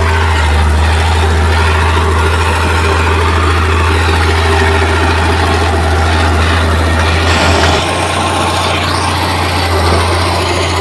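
Heavy diesel engine of earthmoving machinery running steadily with a deep hum, its low note changing and dropping a little about eight seconds in.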